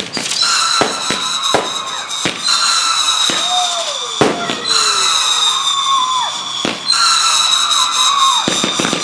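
Consumer fireworks going off: a string of sharp bangs and pops, about nine in all, over a steady high-pitched whistle from a whistling device, with several short whistles that fall in pitch.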